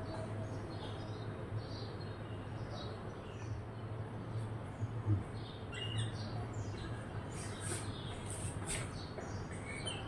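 Rose-ringed parakeet calling: a group of sharp, high screeches about two thirds of the way through, with fainter short bird chirps scattered throughout over a steady low hum.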